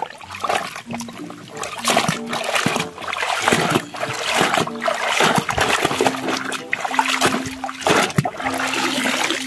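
Water splashing and sloshing in irregular bursts as a plastic toy dump truck is scrubbed and dunked by hand in a basin, with a thin stream of water trickling in.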